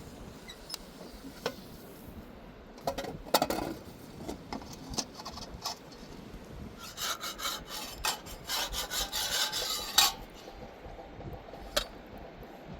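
Rubbing and scraping with scattered sharp knocks, in two busy stretches, the second ending in a loud knock.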